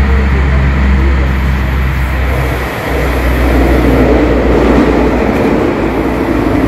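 Light-rail (Stadtbahn) car running on the track, heard from inside the passenger car: a steady low drone with rolling rumble that grows louder after about four seconds.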